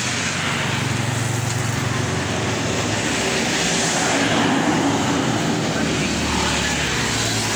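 Road traffic of motor scooters and motorcycles passing, with a steady engine hum that drops lower in pitch about halfway through.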